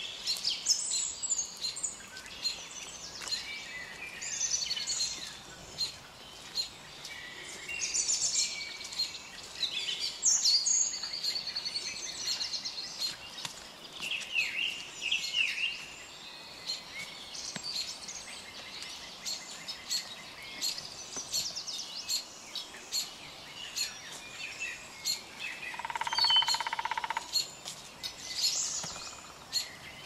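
Several songbirds singing and chirping in short phrases, over footsteps on dry leaves along the trail. About 26 seconds in there is one brief, steadier, lower-pitched call lasting about a second.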